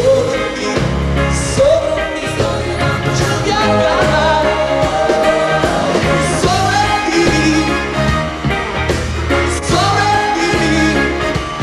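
Pop song playing: a singing voice holds long notes over a steady bass and drum beat.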